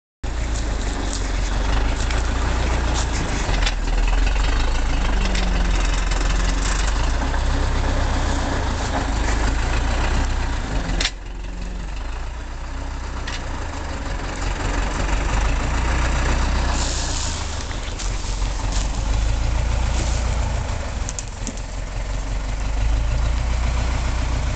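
Zetor 6945 tractor's four-cylinder diesel engine running steadily with a deep rumble while it works a rear-mounted forestry winch. The sound drops suddenly in level a little before halfway and builds back up a few seconds later.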